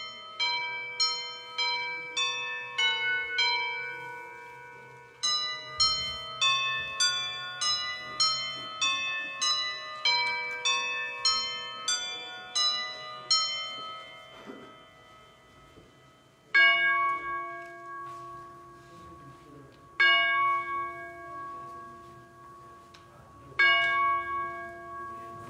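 Church bells ringing a quick run of notes, a short pause, then a second quick run. After that a single bell tolls three times, about three and a half seconds apart, each stroke ringing on.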